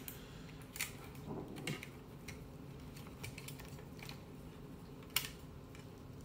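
A few scattered small clicks and taps of plastic telephone parts being handled, as the transmitter and its cap are fitted back into a Trimline handset.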